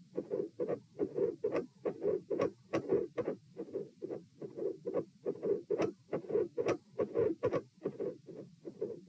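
Human heart sounds heard through a stethoscope: a steady, regular beat of short thumps, with a midsystolic click and a split second heart sound. Such a click is typical of mitral valve prolapse.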